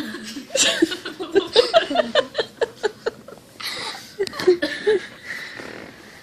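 A person laughing in quick pulsed bursts, about four a second, with a second shorter run of laughter about four seconds in.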